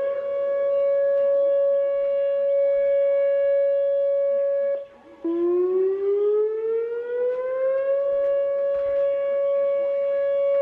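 Outdoor tornado warning siren sounding a steady alert tone. The pitch rises and holds, drops out briefly about five seconds in, then starts low, rises again over about three seconds and holds.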